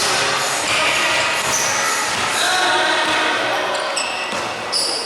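Basketball dribbled and bouncing on a hardwood gym court amid the echoing noise of a game, with players' voices mixed in.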